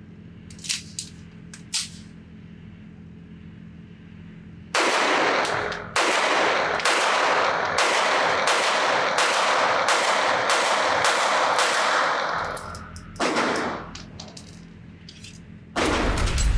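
A few sharp metallic clicks, then a 9mm pistol fired in rapid strings, about two shots a second for several seconds with each report ringing into the next. One more single shot follows, and another loud burst begins near the end.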